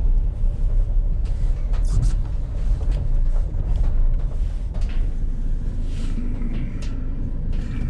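Van driving on a rough road, heard from inside the cab: a steady low engine and road rumble with scattered clicks and rattles.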